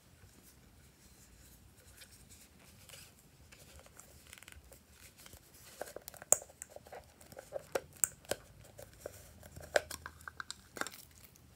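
Small hard plastic case being handled and prised open by hand: faint rustling at first, then from about halfway a run of sharp plastic clicks and snaps as the lid is worked loose and lifted.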